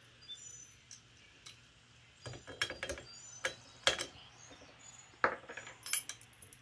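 Small steel hardware, washers, a nut and bolt, clinking and clicking as it is handled, in a string of sharp, irregularly spaced clinks from about two seconds in.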